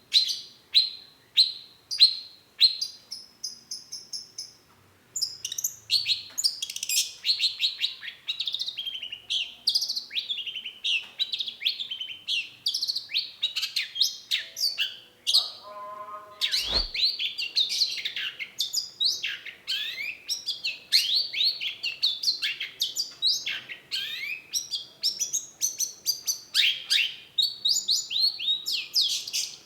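Long-tailed shrike singing: first a series of sharp falling calls, about two a second, then after a short pause a rapid, continuous song of quick falling notes. A single click just past the middle.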